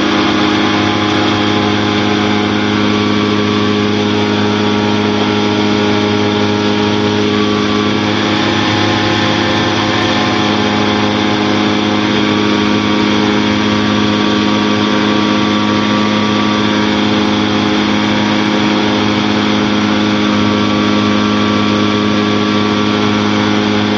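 Challenger II light-sport aircraft's engine and pusher propeller running steadily in cruise flight, a constant drone with no change in pitch, heard from inside the cockpit with wind rush.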